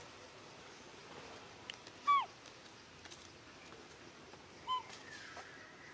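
Two short, high animal calls, each dropping in pitch. The first, about two seconds in, is the louder; the second comes about two and a half seconds later. Faint clicks sound between them.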